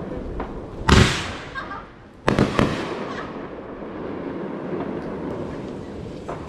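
Fireworks going off: one loud boom about a second in, then a sharp crack followed quickly by two or three more cracks about a second later.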